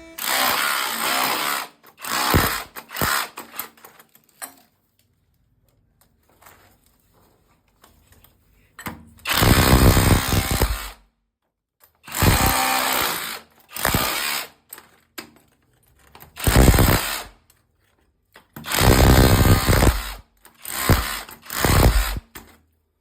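A power tool, drill-like, run in about seven short bursts of one to two seconds each with pauses between, as in repair work on a leaking water line.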